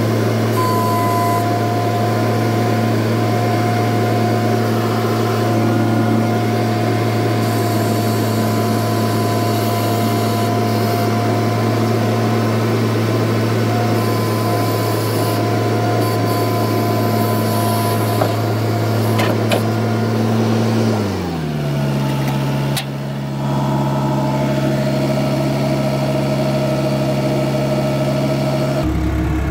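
New Holland LX985 skid steer's diesel engine running steadily at high throttle with a whine above the engine note. It is throttled down about two-thirds of the way through, with the pitch dropping, and drops again near the end.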